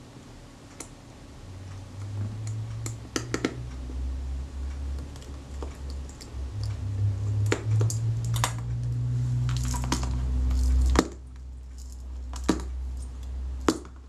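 Small metal clicks and scrapes of a small screwdriver working the screws that hold a camera's shutter body to its mount, and of the shutter assembly being handled. A low rumble of handling runs underneath until about three quarters of the way through, then stops suddenly, leaving a few sharper clicks.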